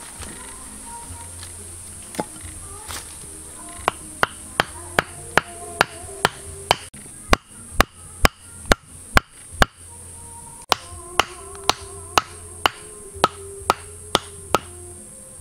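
Wooden stakes being pounded into packed dirt: sharp, evenly spaced knocks, two to three a second, loudest in the middle, with a short pause about two-thirds of the way through. Background music plays underneath.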